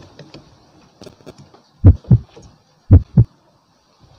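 Heartbeat sound effect: two low double thumps (lub-dub), about a second apart. A few faint small clicks come before them.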